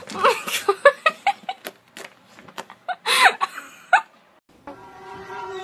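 A person laughing in short bursts and giggles. Near the end, a steady held musical chord fades in.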